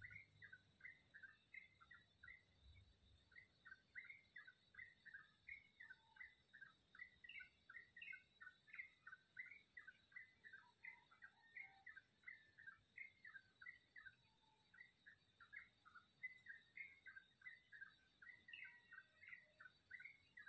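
Bird chirping in a long unbroken series of short, quick notes, about three a second, heard faintly.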